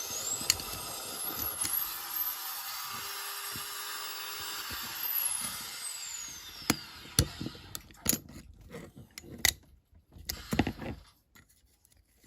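Small power drill spinning up and drilling out the rivets of a diecast model car, then winding down with a falling whine about six seconds in. It is followed by scattered clicks and knocks as the metal parts are handled.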